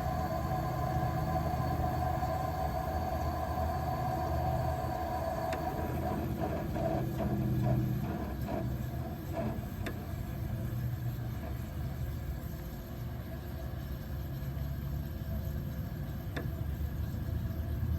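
Fedders 10,000 BTU window air conditioner running with a steady hum and the rush of its fan. A few light clicks and rattles come in the middle, and there is one tick near the end.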